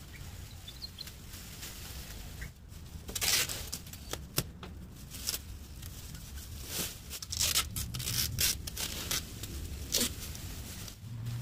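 Thin clear plastic sheeting crinkling and rustling as it is spread and pressed over a car's windows, in irregular bursts.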